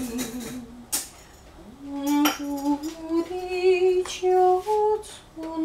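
A person humming a slow tune in long held notes. A few sharp clinks come about one, two and four seconds in.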